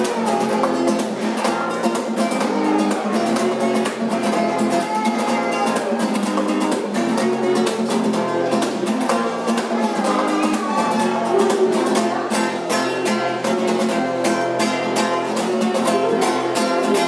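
Nylon-string classical guitar strummed in quick, rhythmic strokes over changing chords.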